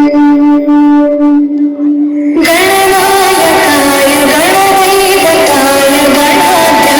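Loud music played through a sound system for a sound check. A single held note sounds for about two seconds, then the full song cuts in with a sung melody that bends up and down.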